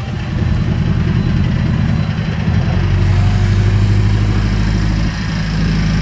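Chana mini pickup's 2.7 engine running at idle with a steady, even beat. It grows louder and heavier about two and a half seconds in, then eases back slightly about five seconds in.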